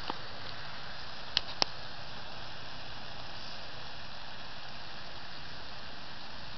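Steady hiss of a garden sprinkler spraying water, with two sharp clicks close together about a second and a half in.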